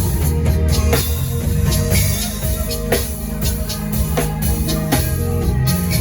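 Live worship band music: a drum kit keeps a steady beat over sustained low bass notes and held chords, with no singing.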